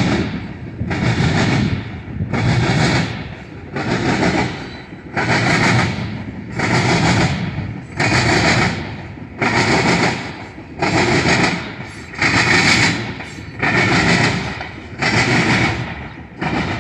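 Steel wheels of a freight train's tank cars clattering over the junction's trackwork. A loud bang repeats about every second and a half as each car's wheels cross.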